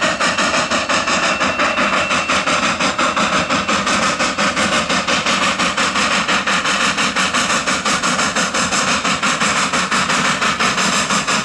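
Cumbres & Toltec Class K-37 2-8-2 narrow-gauge steam locomotive #488 working a passenger train, its exhaust beating out a fast, even rhythm of chuffs over a steady hiss of steam and running noise.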